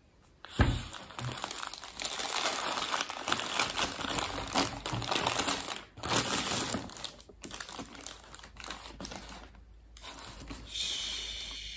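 A plastic soda bottle is set down on a table with a thump, then a paper fast-food bag and burger wrapper crinkle and rustle as they are pulled open. A soft shushing hiss comes near the end.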